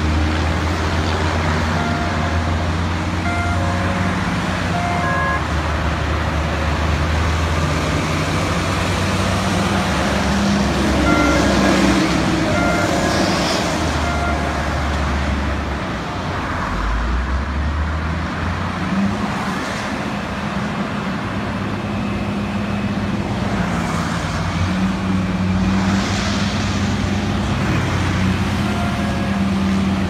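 Heavy diesel engines of construction machinery running, their pitch shifting up and down as they work, with a rev rising about halfway through. Short high beeps come now and then.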